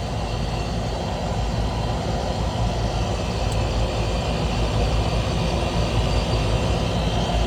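Carrier rooftop unit running with its newly replaced compressor: a steady hum under the rush of three condenser fans.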